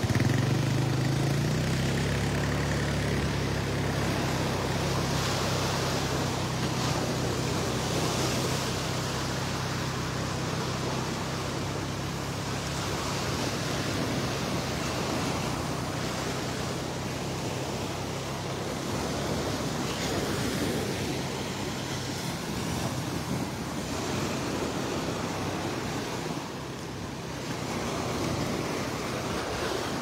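Gulf of Mexico surf breaking and washing up the beach, a steady rushing noise. A low engine hum sits under it for the first ten seconds or so, then fades out.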